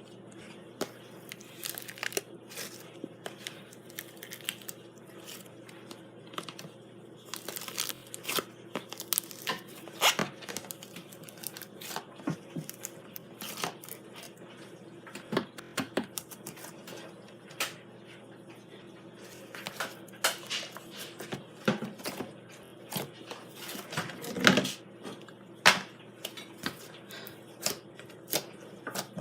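Slime being worked by hand, giving off irregular sharp pops and crackles, with a few louder pops near the end.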